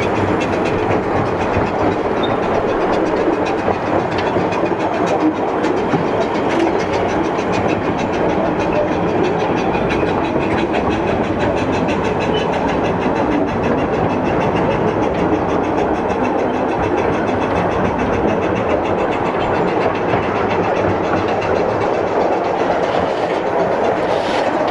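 Narrow-gauge railway train running along the track: a steady, unbroken rumble of wheels on rails.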